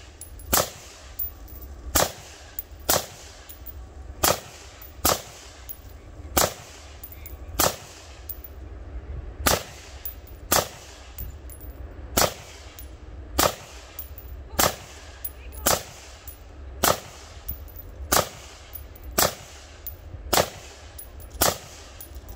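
AR-15-style rifle firing a long string of single shots, roughly one every half second to second, well over thirty in all.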